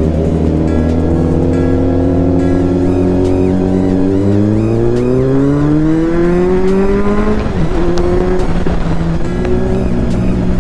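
Motorcycle engine pulling hard under acceleration, its pitch rising steadily for about seven seconds, then dropping sharply as the throttle closes or the next gear goes in, and running steadily after.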